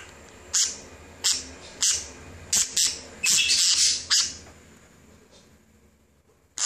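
Pet talking parrot chattering at close range in a string of short, harsh squawks about every half second, then one longer raspy burst around three to four seconds in, before falling quiet.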